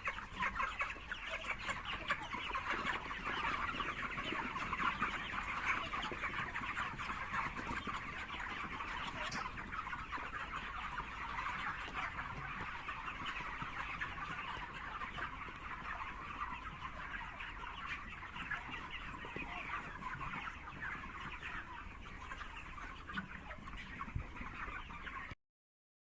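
A large flock of chickens in a poultry house: a dense, continuous chatter of many overlapping calls that cuts off suddenly near the end.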